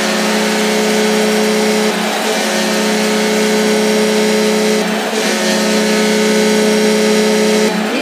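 Binghamton Senators arena goal horn sounding two long, steady blasts, with a short break about five seconds in, over crowd noise.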